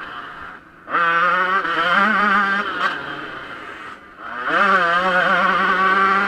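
Yamaha YZ125 two-stroke motocross engine under hard riding, heard close from the rider's helmet: off the throttle briefly, then revving up sharply about a second in and holding high revs. The revs sag just before four seconds and then rise again into another long pull at high pitch.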